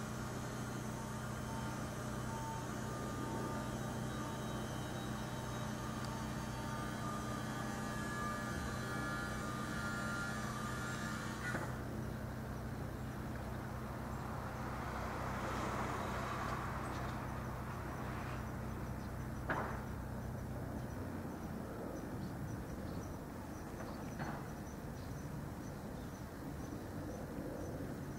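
An engine running steadily with a low, even hum, which stops about three-quarters of the way in. There is one sharp click a little after the middle.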